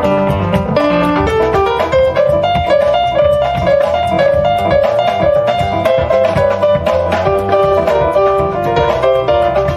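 Instrumental band passage: a keyboard playing a piano-sounding melody over double bass.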